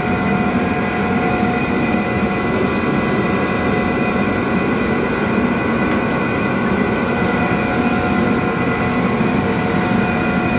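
A forced-air workshop space heater running: a steady rushing noise with a few constant whining tones held throughout.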